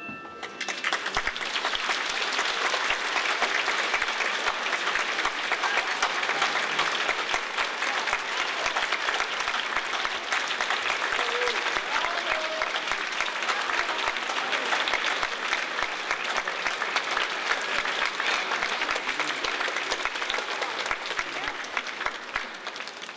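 Audience applauding: dense, steady clapping that starts about half a second in and thins out near the end.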